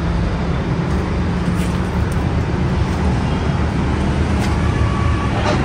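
Wind buffeting the phone's microphone: a steady, loud low rumble with a hiss over it.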